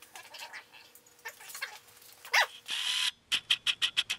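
Hands and tools working on a motorcycle engine's top end: light metal clinks and scrapes, a short squeak about halfway through, then a quick, even run of about seven sharp clicks near the end.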